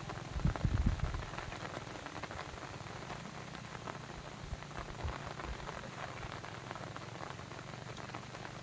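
Steady rain pattering, a dense spray of small drops, with a few low rumbling thuds in the first second.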